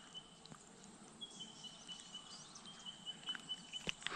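Faint outdoor ambience: an insect's thin high trill, coming and going in long stretches, with a few soft clicks from hands unhooking a small redfin, the loudest near the end.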